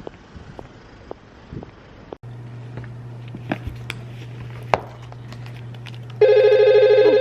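A loud, steady electronic tone, like a phone ring or beep, sounding once for about a second and a half near the end, over a low steady hum and scattered light clicks and taps.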